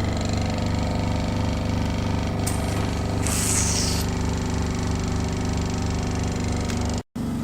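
Hydrodermabrasion machine's pump running with a steady, evenly pulsing hum and a brief hiss about three seconds in. The sound cuts out for a moment near the end.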